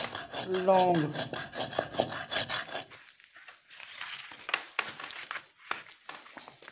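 Wooden pestle grinding dry tamarind powder in a mortar: a fast, even scraping and knocking rhythm that stops about three seconds in. After that come only a few soft scattered knocks and rustles.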